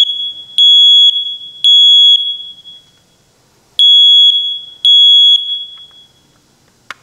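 First Alert smoke detector's piezo horn sounding on test with loud, high-pitched half-second beeps: three in a row, a pause, then two more before it stops, the standard three-beep alarm pattern. It sounds because a battery contact that had pulled out and lost contact was pushed back in. A sharp click near the end.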